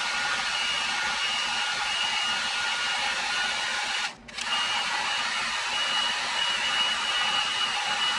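Electric heat gun running with a steady blowing whine, flashing off freshly sprayed Duracoat aerosol coating on pistol slides. The sound drops out for a moment about four seconds in and comes straight back.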